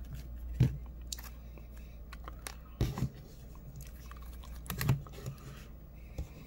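Trading cards and objects being handled on a table: small clicks and rustles over a low steady hum, with three louder soft knocks, about half a second, three seconds and five seconds in.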